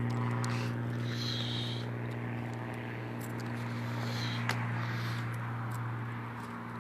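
A steady, unchanging low mechanical hum of running machinery, with a single faint click about four and a half seconds in.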